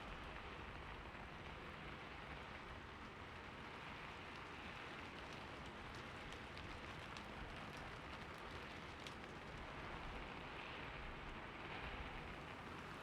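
Faint, steady rain falling, with scattered single drops ticking sharply on a surface.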